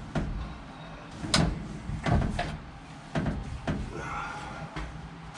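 Irregular sharp knocks and clunks, about six over five seconds, the loudest a little over a second in.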